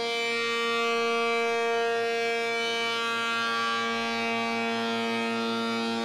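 A 3/4 hp shaper spinning a raised-panel cutter at about 7,000 RPM, with a steady high whine, as a test panel is hand-fed through it. The hiss of the cutter taking wood sets in just after the start and is strongest in the middle. The pass is fed a little too slowly and leaves a slight burn on the end.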